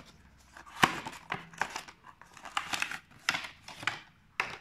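Cardboard box flap being opened and a clear plastic tray slid out of it: irregular crinkles, scrapes and clicks of card and thin plastic being handled.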